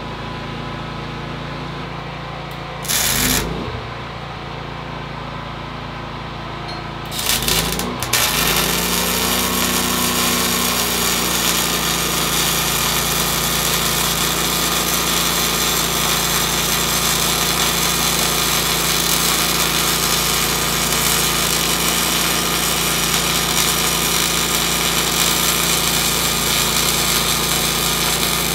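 Predator 9500 inverter generator running steadily, then a Miller Multimatic 220's welding arc struck briefly twice, about three and seven seconds in. From about eight seconds on the arc is held as a continuous loud hiss over the generator, whose engine speeds up as the welding load comes on.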